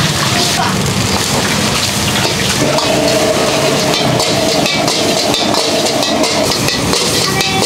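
Fried rice sizzling in a wok over a gas flame, with a metal ladle scraping and clinking against the wok as it is stir-fried.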